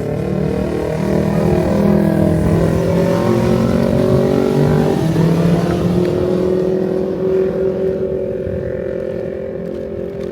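Several sport motorcycles running on a race track, their engines overlapping and shifting in pitch. The sound swells in the middle and eases off slightly toward the end.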